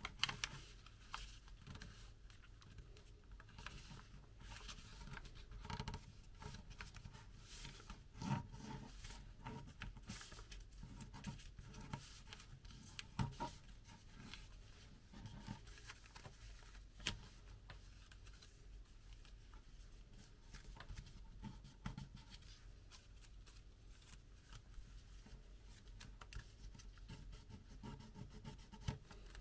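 Origami paper being folded and creased by hand: faint rustling and crinkling with sharp creasing crackles at irregular moments, a few of them louder.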